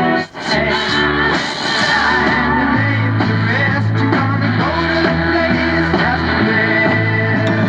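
Rock-style song with singing and guitar playing through the Nordmende Caruso console tube radio's loudspeaker, with a brief dropout about a third of a second in.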